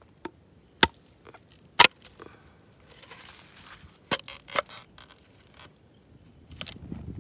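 Sharp cracks from a charred bamboo cooking tube as a knife blade is levered into it to split it open after roasting. There are about six separate cracks: the loudest two in the first two seconds, a pair a little past the middle, one more near the end.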